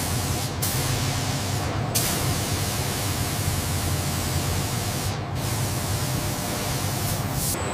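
Spray gun hissing steadily as it sprays the hide, with a short break about five seconds in, over a steady low machine hum.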